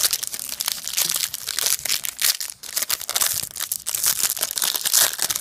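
Foil wrapper of a Match Attax trading card pack being torn open and crinkled by hand, a dense run of sharp crackles and rustles.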